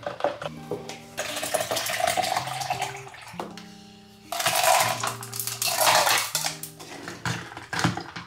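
Ice cubes and liquid going into a plastic cup for an iced coffee, rattling and splashing in two spells, the louder one from about four seconds in, over soft background music.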